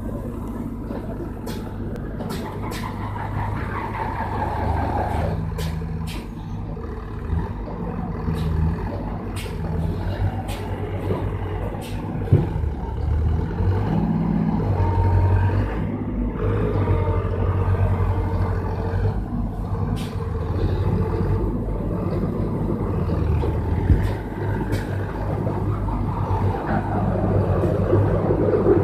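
Sonalika 750 DI tractor's diesel engine running hard under heavy load, its note rising and falling as it strains to pull a loaded log trolley stuck in mud. Sharp clicks come now and then.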